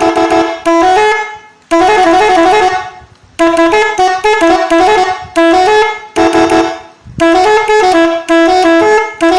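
Three-trumpet, eight-tone telolet horn sounding about ten loud blasts in a row, each stepping between notes of a do-re-mi scale like a short tune, with brief gaps between blasts.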